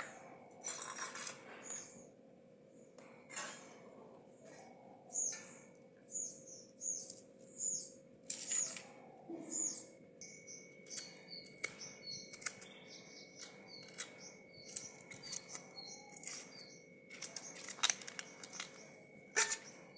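Small birds chirping over and over in short high calls, among brief sharp handling noises. A faint steady hum runs underneath, and a thin high tone joins about halfway through.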